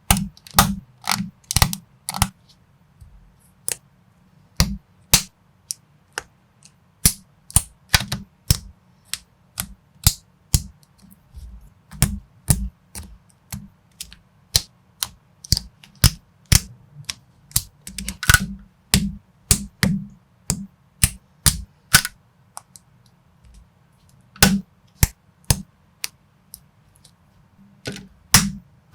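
Plastic Lego-compatible building bricks clicking and snapping as they are pressed together and handled, in irregular sharp clicks, often several in quick succession.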